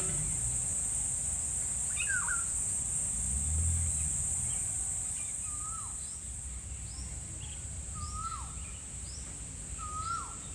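Outdoor garden ambience: a steady high-pitched insect drone, with a bird repeating a short call every two to three seconds and a few fainter chirps.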